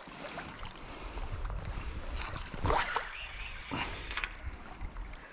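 River water flowing and sloshing, with a low rumble and a few short sharp splashing noises about the middle.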